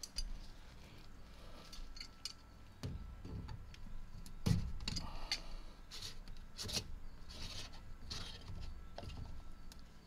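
Plastic drain-pump filter cap of an Amana front-load washer being gripped and unscrewed by hand: faint rubbing and scattered clicks of plastic on plastic, with one louder knock about halfway. The filter is clogged with gunk, the cause of the washer's failure to drain.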